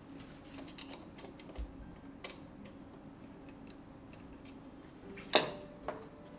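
Scattered small metallic clicks and scrapes of a screwdriver prying at the metal cable guard of a Grundfos SQF submersible pump, with one sharp, loud metal click about five seconds in, over a faint steady hum.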